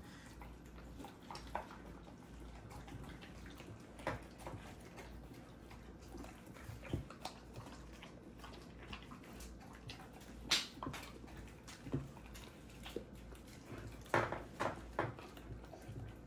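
Two dogs eating from divided plates: wet licking and chewing, with scattered short clicks and knocks against the plates, the sharpest about ten seconds in and a quick cluster near the end.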